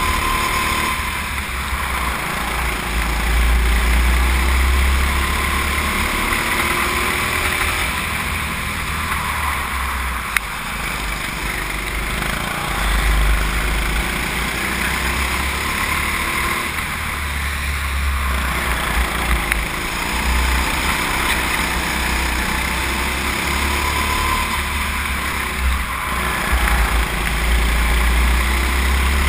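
Go-kart engine running at speed, heard from a camera mounted on the kart, with a low rumble that swells and fades every few seconds as it laps.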